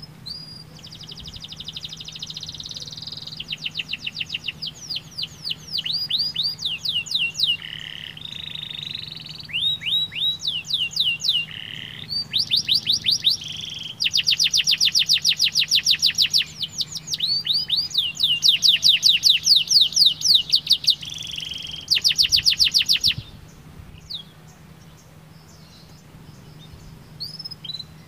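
Domestic canary singing a long song of trills, each a run of one note repeated, some at a few notes a second and others very fast, with short breaks between them. The song stops about 23 seconds in, and only a few faint notes follow.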